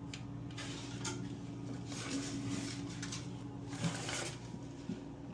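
Hands working on toilet tank parts, giving scattered light clicks, knocks and rustles, over a steady low hum.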